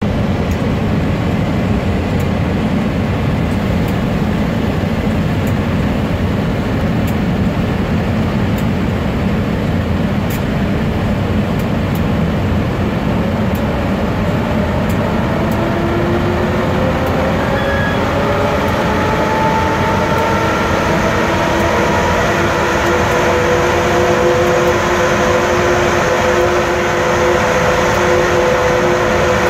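Class 18E electric locomotives pulling away from a stand: a steady blower noise, joined about halfway through by several tones that slowly rise in pitch as the traction motors and gearing gather speed.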